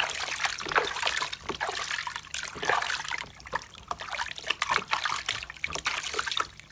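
Bath water splashing and trickling in a basin as a baby monkey is washed by hand: a steady run of small, irregular splashes and drips.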